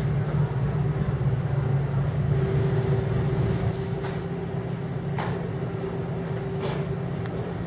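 Steady low mechanical drone with a faint steady tone above it, and a few brief clicks about four, five and nearly seven seconds in.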